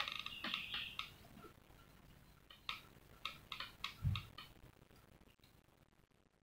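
Faint clicks and ticks: a quick cluster right at the start, then a few sharper clicks about three to four seconds in, with one low thump among them.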